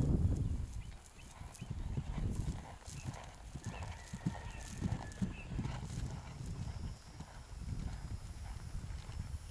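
Horse's hooves thudding on grass at a canter, a steady rhythm of dull beats.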